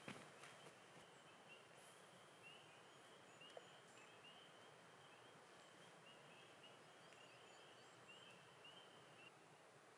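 Faint chorus of spring peepers: short rising peeps repeating irregularly, then stopping near the end, over a near-silent background. One small click about three and a half seconds in.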